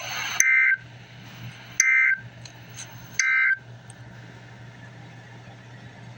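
Emergency Alert System end-of-message signal: three short bursts of warbling digital data tones, about a second and a half apart, closing the alert. A hiss cuts off just before the first burst, and a low hum runs underneath.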